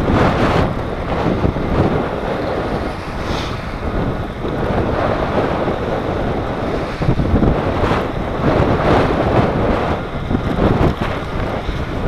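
Loud wind buffeting the microphone of a camera on a bike ridden along a sand and shingle beach, rising and falling in gusts.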